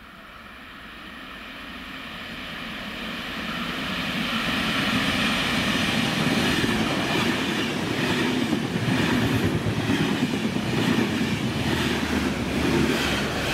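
An Enterprise passenger train passing close by: the wheel and rail noise swells as the train approaches over the first five seconds, then the coaches go by with a rapid clatter of wheels over the rails. Near the end the Irish Rail 201 Class diesel-electric locomotive, with its EMD 12-710 engine, passes at the rear, pushing the train.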